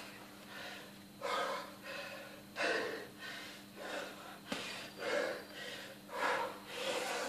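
A boxer's heavy breathing while working a heavy punching bag: a loud, hard exhale about every second or so.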